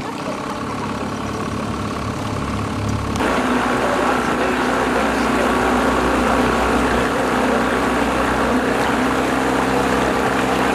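Outboard motor of a river raft running steadily, becoming louder and rougher about three seconds in.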